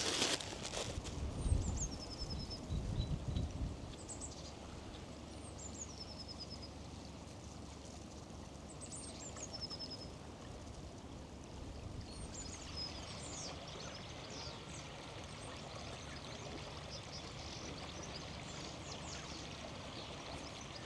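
Outdoor riverside sound: a small river running, a steady faint hiss, with small birds chirping short, high, falling phrases again and again, busier in the second half. A few low knocks come in the first few seconds.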